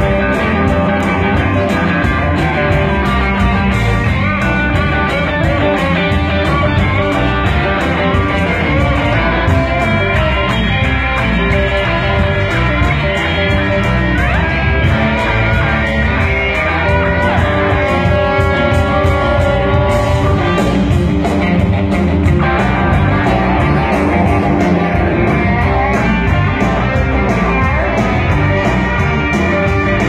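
Blues band playing, a guitar to the fore over bass and drums with a steady beat; held guitar notes stand out past the middle.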